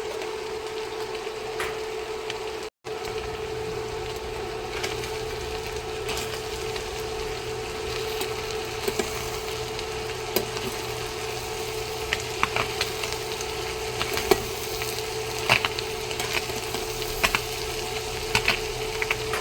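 Ground chicken with onion, green bell pepper and garlic sizzling in olive oil in a frying pan, over a steady hum. Scattered light clicks and taps come in the second half, and the sound cuts out briefly about three seconds in.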